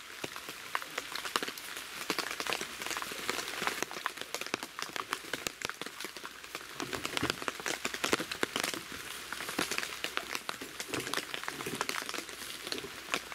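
Steady rain falling, with many separate drops heard hitting.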